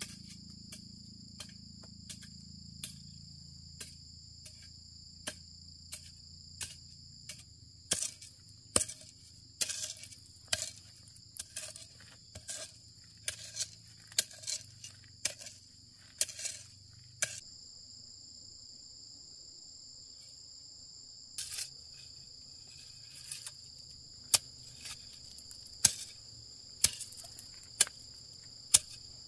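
A machete-like blade chopping into soil and weeds in a run of sharp strikes about a second apart, getting harder about a third of the way in, pausing for a few seconds past the middle, then resuming. Insects keep up a steady high chirring throughout.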